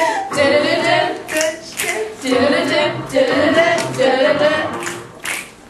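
A group of female voices singing unaccompanied, with a few scattered hand claps.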